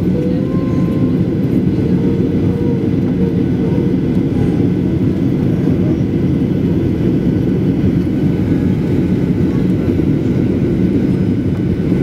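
Steady engine and airflow noise heard inside the cabin of a Boeing 737-900ER with CFM56-7B turbofans, descending on approach; a low, even noise with no changes.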